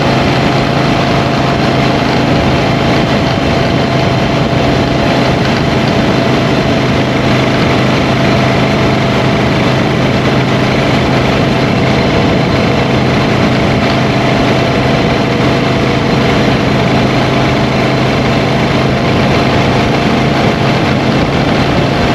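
Motorcycle engine running at a steady cruising pace with heavy wind and road noise while riding; the engine note holds constant throughout.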